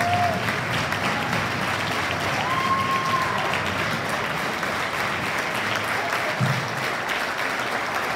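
Banquet audience applauding steadily, many people clapping at once.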